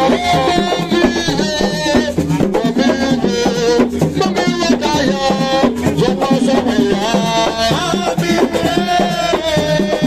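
Live assiko music: several hand drums, including strapped drums and a tall upright drum, play a dense, driving beat, while a man sings into a microphone over them.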